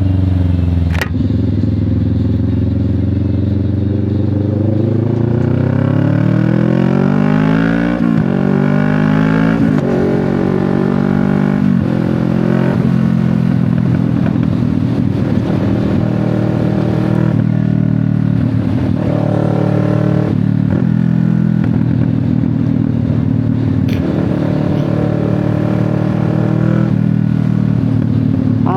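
CF Moto 650NK parallel-twin engine through an SC Project aftermarket exhaust, riding under way. It revs up through the gears, rising in pitch and dropping at each upshift during the first dozen seconds, then runs at a steadier cruise.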